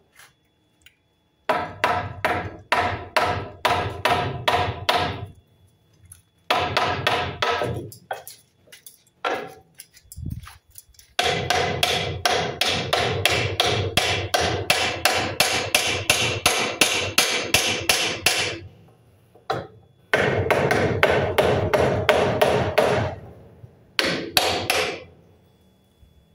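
Hammer blows on a scrap block of wood held against a new treated-pine patio post, knocking the post upright into place under the beam. The strikes are rapid, about three or four a second, in several runs with short pauses between them.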